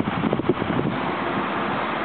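Road traffic passing at a junction, with wind buffeting the camera microphone; no siren is sounding, as the ambulance is on a non-urgent A2 run.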